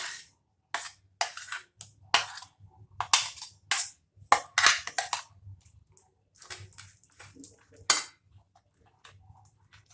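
A spoon scraping against a bowl and squelching through ground spice paste as it is added to and mixed into marinated chicken, in a run of short, irregular strokes.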